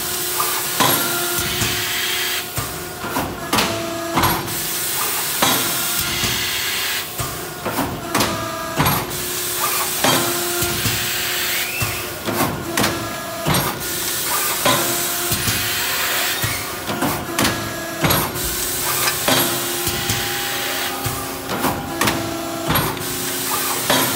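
Plastic plate thermoforming machine with robot stacker running: frequent sharp clacks and knocks from the press and stacker, over a hum that comes and goes and a steady hiss.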